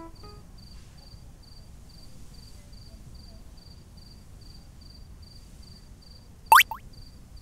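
Crickets chirping in a steady pulse about four times a second over a low hiss, as a night ambience. About six and a half seconds in comes a loud, short cartoon sound effect that sweeps quickly up in pitch, with a fainter second sweep right after it.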